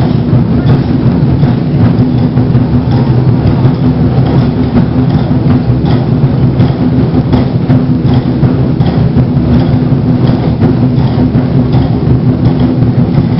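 24 Festive Drums ensemble (large Chinese barrel drums) playing together in a loud, continuous, dense rolling beat.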